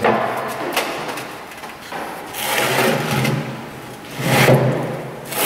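A pickup truck being pushed by hand along an alignment rack onto the turntables: a surge of noise right at the start, then two more about two seconds apart, each lasting about a second.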